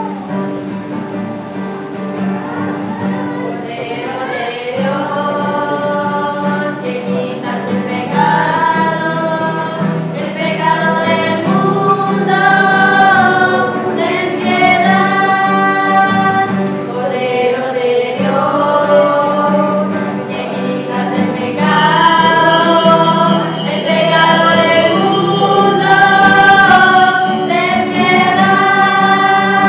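Church hymn sung in short melodic phrases over a steady instrumental accompaniment. A brighter high layer joins about two-thirds of the way through.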